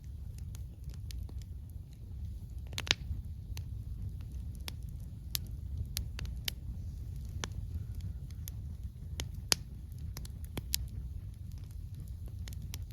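Wood campfire crackling, with irregular sharp pops and snaps over a steady low rumble, the loudest pops about three seconds in and near the middle.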